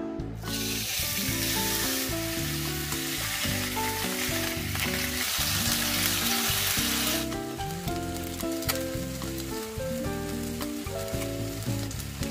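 Chuck steak sizzling on a hot cast-iron grill pan, the hiss starting as the meat goes down about half a second in and dropping to a much fainter sizzle about seven seconds in. Background music plays throughout.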